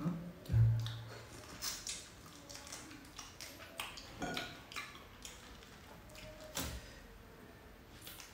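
Pineapple being pulled apart into segments by hand and eaten: scattered short clicks and crackles, with a brief low hum about half a second in.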